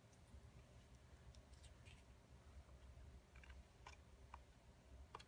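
Near silence: a faint low hum, with a few soft ticks and scratchy strokes of a soft brush on card stock and of the card being handled, mostly about two seconds in and again toward the end.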